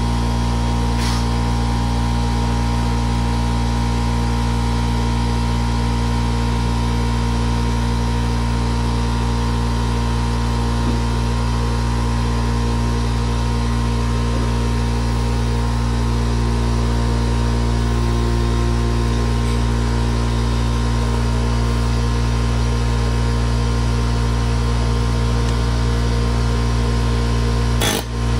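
Steady mechanical hum of a motor running nonstop, a deep drone with a few constant tones above it. There are a couple of sharp knocks right at the end.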